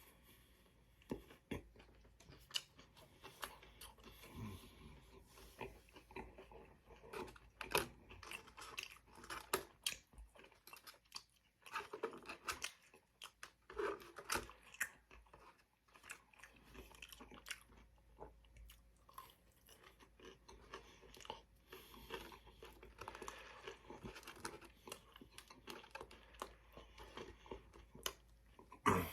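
A man chewing and biting Chick-fil-A food, with many short, irregular crunches and mouth clicks.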